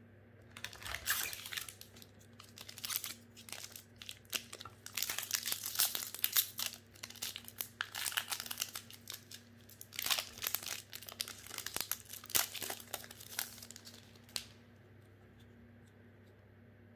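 Plastic wrapper of a Magic: The Gathering Modern Horizons 2 booster pack being torn open and crinkled by hand, a long run of crackling bursts that stops a couple of seconds before the end.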